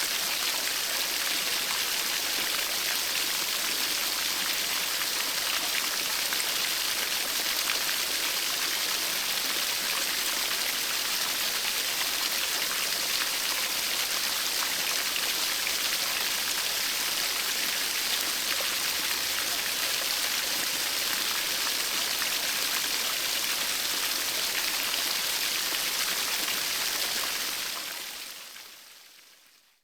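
Steady rushing water, an even hiss with no single drops or splashes standing out, fading out over the last couple of seconds.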